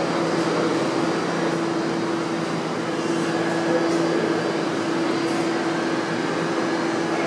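R68 subway train standing in the station with its on-board equipment running, giving a steady hum with two low droning tones.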